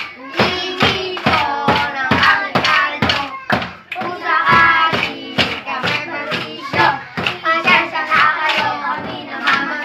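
Children singing a Christmas carol together over a steady beat of about three strokes a second on makeshift drums.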